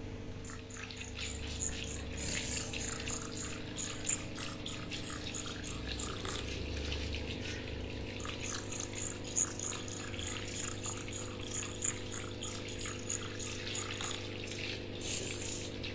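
Water from a garden hose spraying and splashing onto a wet dog's coat in an irregular patter, with a few sharper splashes, over a steady low hum.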